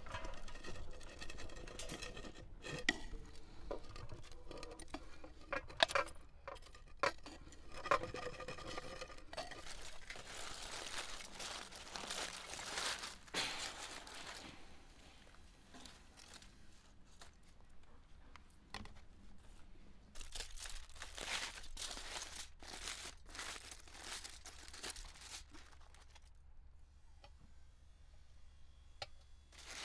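Cooked rice poured and spooned onto a metal serving tray, the grains pattering and clinking on the metal. Later, aluminium foil crinkling and tearing as it is unwrapped, in several long rustling spells.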